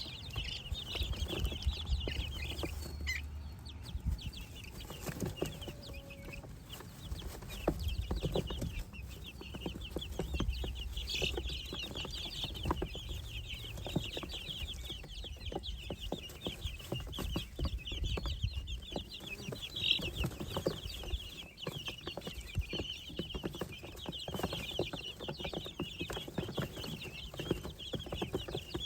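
A brood of baby poultry (chicks, guinea keets and ducklings) peeping continuously: many overlapping short, high cheeps.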